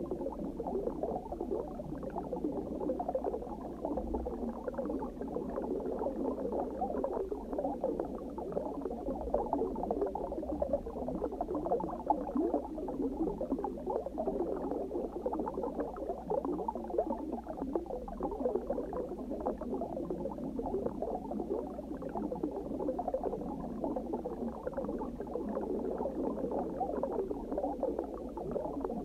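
Underwater ambience of steady, dense bubbling, with a low rumble beneath.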